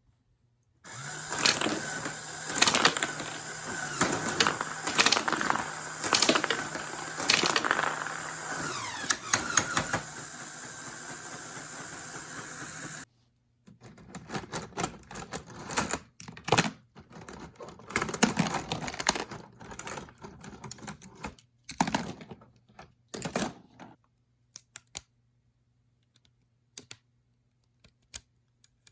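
Lego machine gun mechanism running, with a steady motor-like hum and rapid plastic clicking for about twelve seconds, then cutting off suddenly. After that comes irregular plastic clicking and clattering for about ten seconds, thinning to scattered single clicks.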